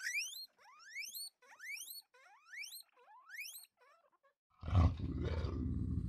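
Guinea pigs wheeking: five rising, whistled squeals in quick succession. About four and a half seconds in, a sudden, loud, low and rough sound takes over and continues.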